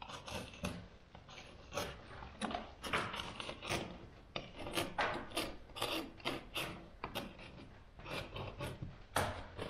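A cut-down knife scraping old oil paint and chalk, softened by a paste stripper, off a plaster ceiling cornice in short strokes, about two a second, the paint coming away in strips.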